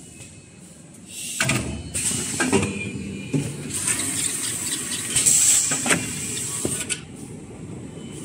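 Point-to-point embossing kitchen towel rewinding machine running, with a mix of rushing, hissing and clattering. It grows loud about a second in and eases off near the end.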